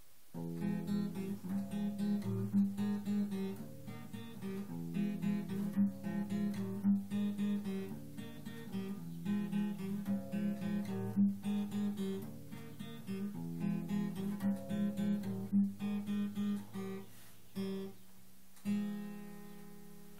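Acoustic guitar strummed in a steady rhythm of chords, starting about half a second in. Near the end the playing pauses and a single chord is left ringing and fading.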